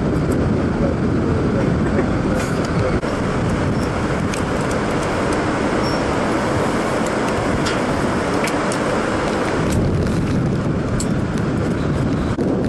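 Steady loud rushing noise with scattered sharp metal clicks from carabiners and harness hardware being clipped and handled.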